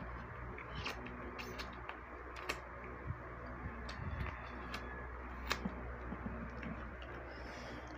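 Eating sounds of two people eating crab, fried fish and rice by hand: scattered soft clicks and smacks of mouths, fingers and food, the sharpest about five and a half seconds in, over a steady low room hum.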